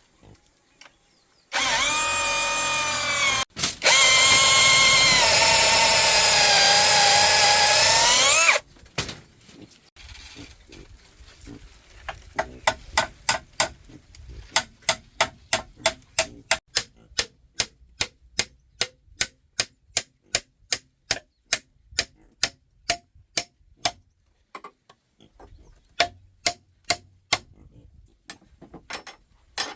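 Electric drill running in two loud runs, its whine bending up and down in pitch as it works. After a pause it gives way to a long run of sharp, evenly spaced knocks, about two or three a second, then a few more near the end.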